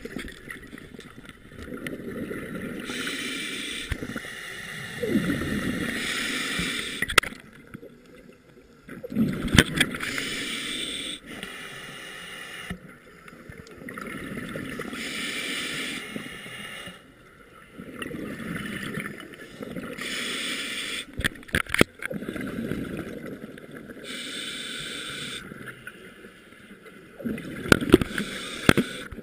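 Scuba regulator breathing underwater: a hiss on each inhale alternates with the low gurgling rumble of exhaled bubbles, a breath every few seconds. A few sharp clicks are heard along the way.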